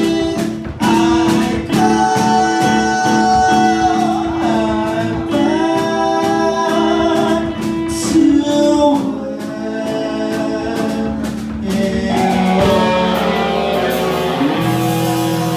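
Live rock band playing: a vocalist sings over electric guitar, bass and drums.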